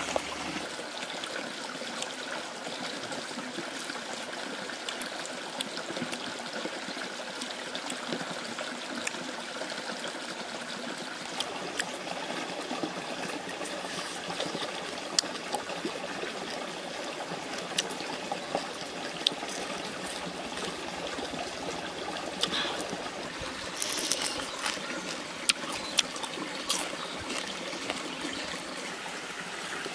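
Steady running water trickling, like a small stream. A few sharp clicks sound over it, most of them in the second half.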